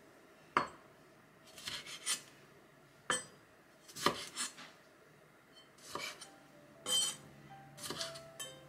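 Kitchen knife slicing cherry tomatoes in half on a wooden cutting board: the blade knocks sharply on the board about five times, with short slicing scrapes in between. Soft background music comes in near the end.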